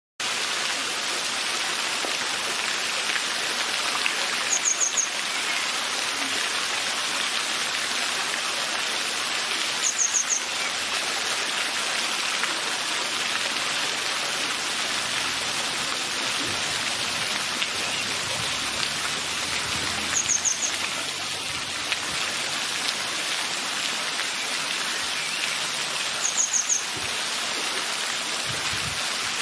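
Steady rushing of stream water, broken four times by a grey wagtail's call: a quick burst of three or four sharp, very high notes, several seconds apart.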